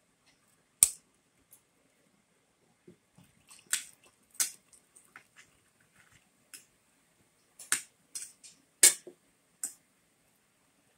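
Metal spoon and fork clinking against a ceramic plate while eating: a string of sharp clinks at uneven intervals, the loudest about a second in and again near nine seconds in.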